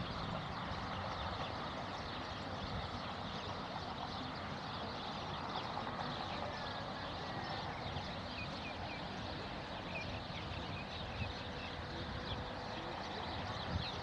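Many birds chirping and screeching in short high calls over a steady rush of strong wind.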